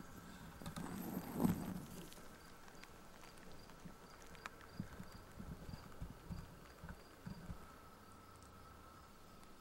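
Dry soil being scraped back into a small dug pit: a loud rush of loose dirt and gravel about a second in. It is followed by a run of soft, uneven thumps on the dry ground.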